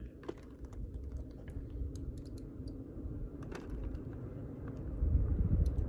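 Light, irregular clicks and crinkles of a foil backpacking-meal pouch being squeezed and poured out, with small pieces of camp gear handled alongside. Under them is a low rumble that grows louder near the end.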